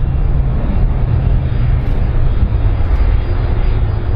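Airbus A310-304 twinjet's engines running loud and steady with a deep rumble as the airliner rolls along the runway.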